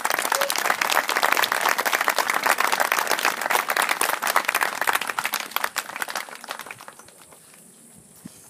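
Audience clapping, dense and loud for about six seconds, then thinning out and dying away near the end. A steady high insect buzz runs underneath.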